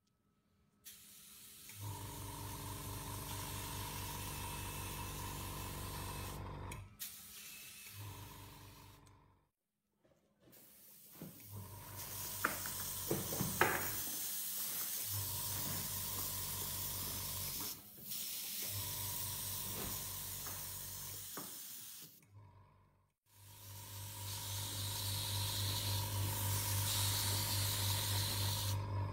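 Anest Iwata Decoair food spray gun spraying colored cocoa butter with its adjusting knob fully open: a steady hiss of spraying air over a low hum, in several stretches broken by short silences.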